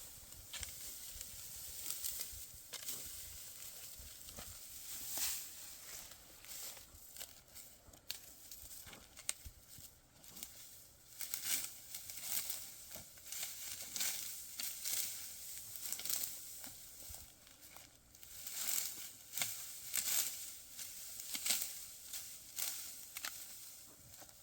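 Dry wheat stalks crunching and rustling in irregular crisp strokes, every second or two, as wheat is harvested by hand.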